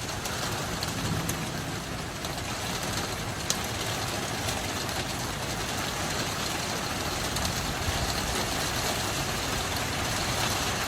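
Steady rain hissing down in a storm, with one sharp tick about three and a half seconds in.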